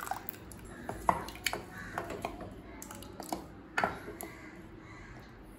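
Tamarind water poured into thick cooked dal in a steel pot, then a wooden spoon stirring it: wet squelching with a few scattered knocks of the spoon against the pot.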